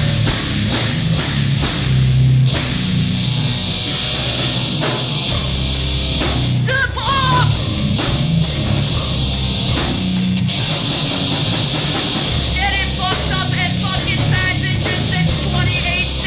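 Loud live punk band playing heavy, distorted rock with a drum kit pounding steadily underneath. A few bending, wavering guitar or vocal lines stand out about seven seconds in and again in the last few seconds.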